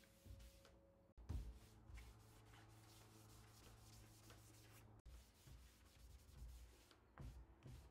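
Faint rubbing of a cloth rag over a plywood cabinet door as hard wax oil is wiped on, in repeated strokes. The sound drops out abruptly twice.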